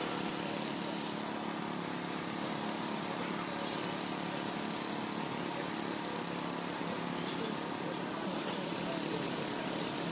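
A steady mechanical drone under an even hiss, engine-like, with no clear strokes or changes.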